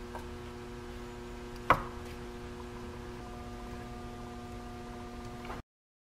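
Steady electrical hum with a few faint clicks of hand tools working on the engine, and one sharp metallic click about two seconds in. The sound cuts off abruptly near the end.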